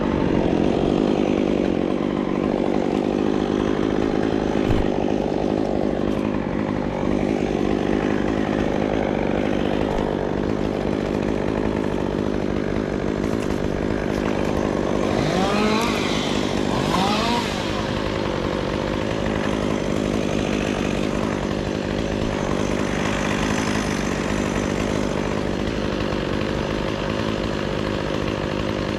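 Chainsaw engine running steadily, revved up twice about halfway through.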